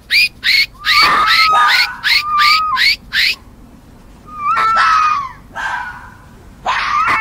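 Fox calling: a rapid run of short, high, upward-sweeping yelps over a held whine, about four a second, breaking off after about three seconds. After a pause come three more separate whining calls.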